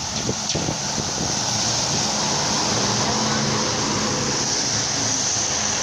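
Vintage trolleybus driving past close on a wet road: a steady rush of tyres on wet asphalt mixed with wind, with a faint low hum.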